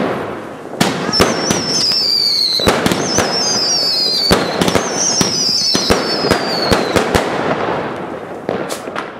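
A 500-gram, 56-shot consumer fireworks cake firing: a rapid run of shots and bangs with crackling, and three warbling whistles that fall in pitch one after another over the first seven seconds.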